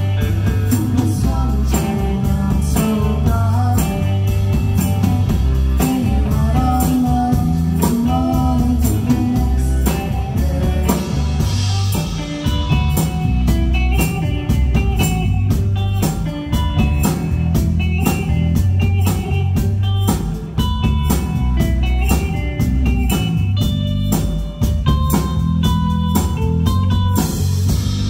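Live rock band playing: electric guitar, bass guitar and drum kit, with a steady drumbeat.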